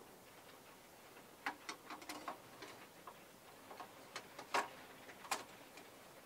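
Photographic enlarger lens being turned by hand, giving a run of small, irregular clicks, with two louder ones near the end.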